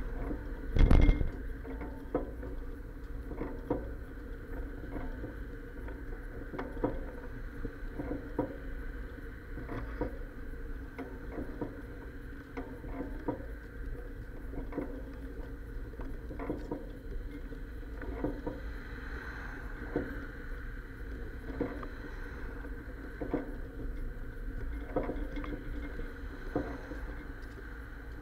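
Bicycle riding over the sidewalk, heard through an action camera's sealed waterproof case: a steady low rumble with frequent irregular clacks and bumps from the bike's frame, with a heavier knock about a second in.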